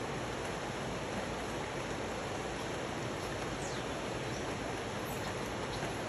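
Steady rain over tropical rainforest mixed with the rush of a river, an even hiss with no breaks.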